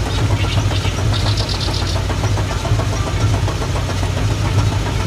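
A car engine running steadily at low speed.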